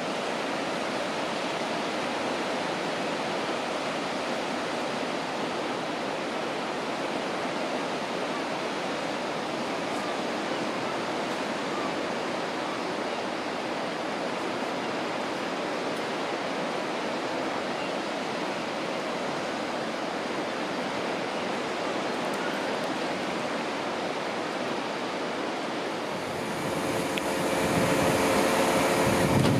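Steady wash of sea waves breaking on a beach. Near the end a louder, steady hum of a Class 166 diesel multiple unit's engines comes in as the train stands at the platform.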